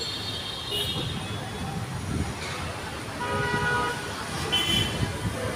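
Wind buffeting the microphone over a low city rumble, with a short horn-like tone about three seconds in and another brief tone near five seconds.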